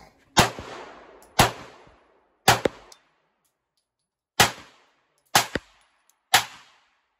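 Six pistol shots from a handgun, fired one at a time about a second apart with a two-second pause after the third, each crack followed by a short ringing tail.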